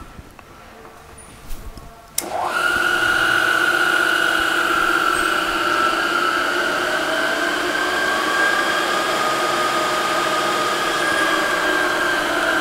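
Jet JTM-4VS vertical milling machine's 3-horsepower spindle motor starting about two seconds in. Its whine rises quickly to pitch, then the spindle runs smoothly and steadily, with a fainter tone drifting slowly up and back down partway through.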